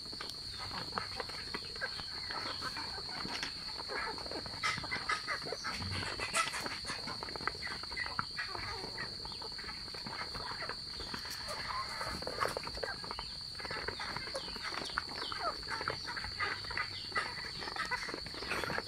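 Muscovy ducks, geese and chickens feeding together on rice from a basin: a dense, continuous run of bill pecks and taps with short chirps and peeps mixed in. A steady high-pitched whine runs underneath.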